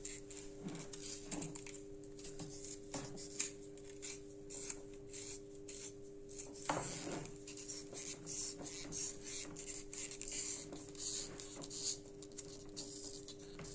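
Faint rubbing and small clicks of an electric soldering iron being turned over in the hands and its cord being moved about, over a steady low hum.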